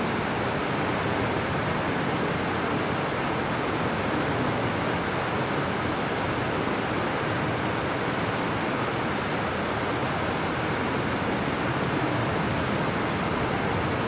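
Steady, even hiss of background noise with no speech and no separate events. A faint high whine runs through it.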